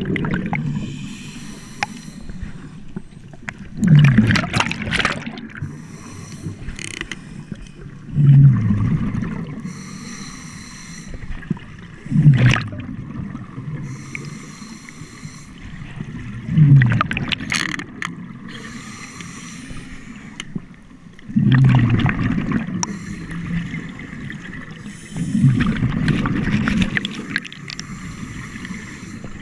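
Scuba diver breathing through a regulator underwater: a rumbling gush of exhaust bubbles about every four seconds, with the fainter hiss of the regulator on each breath in between.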